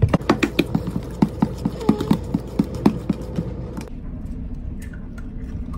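Cake batter being beaten by hand in a plastic bowl, the utensil clicking rapidly against the bowl about five times a second. The beating stops about four seconds in.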